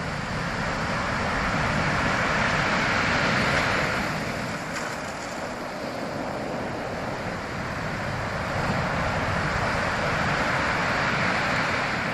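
Ocean surf: waves breaking and washing in, the rush swelling twice and easing between.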